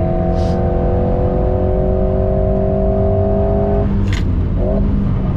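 Alpine A110S's 1.8-litre turbocharged four-cylinder pulling at full throttle in fifth gear, heard inside the cabin, its note rising slowly with speed. About four seconds in the driver lifts off for braking: the steady note breaks off and a brief hiss follows.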